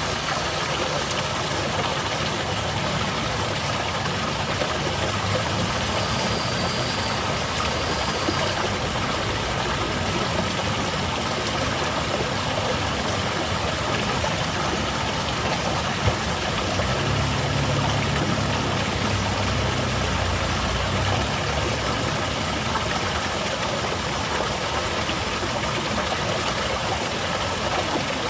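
Small garden waterfall splashing steadily, with a low engine rumble underneath that grows heavier for a few seconds past the middle.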